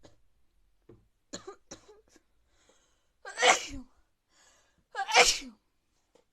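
Two loud sneezes about a second and a half apart, each with a falling tail and each preceded by a faint intake of breath. Fainter short sounds come before the first.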